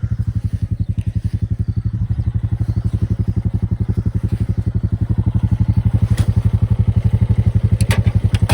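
Small engine of a farm vehicle running with a fast, even pulsing beat, a little louder from about six seconds in, with a few light clicks near the end.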